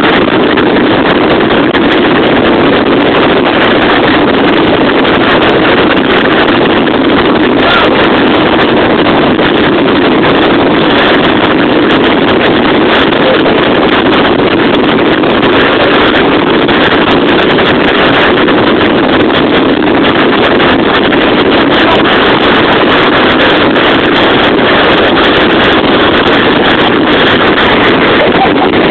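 Strong North Sea gale blowing hard on the microphone: a loud, steady rush of wind noise.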